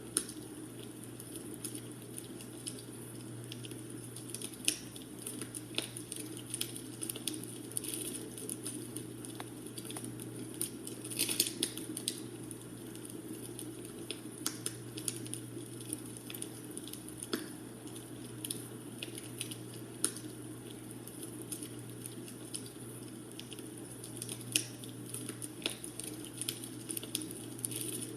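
Wood fire crackling in a fireplace: irregular pops and snaps, a few louder than the rest, over a steady low hiss.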